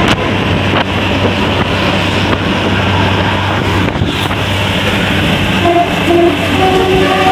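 Steady road noise with a low engine hum and wind on the microphone. Near the end a bus's basuri multi-tone horn starts its telolet tune: two short toots, then a longer held note, stepping slightly up in pitch.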